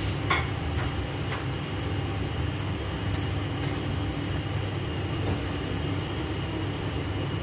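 Kitchen range hood exhaust fan running with a steady low hum, with a few light clicks and knocks in the first second and a half.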